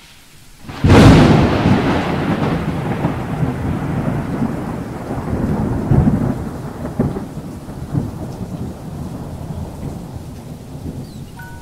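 A sudden clap of thunder about a second in, followed by a long rolling rumble that slowly fades, with rain.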